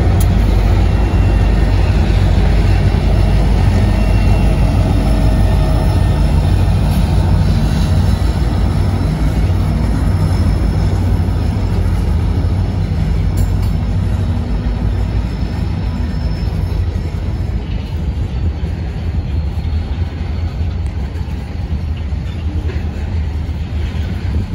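SWP freight train passing close by: the diesel locomotives' low engine rumble, then tank cars and boxcars rolling on the rails. The rumble eases off a little in the last few seconds as the locomotives draw away.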